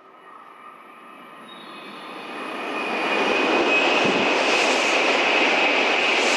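Kyushu Shinkansen N700 series train passing through the station at speed without stopping: its noise swells over about three seconds as it approaches, then becomes a loud, steady rush with a high steady tone as the cars sweep past.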